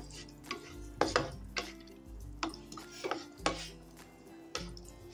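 Wooden slotted spatula stirring cashews roasting in ghee in a non-stick frying pan: an irregular series of scrapes and knocks against the pan, roughly one every half second.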